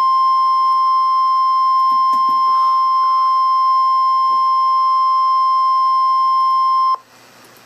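NOAA Weather Radio 1050 Hz warning alarm tone: one loud, steady, high-pitched tone that cuts off abruptly about seven seconds in. It is the attention signal that comes right before a severe thunderstorm warning is read out.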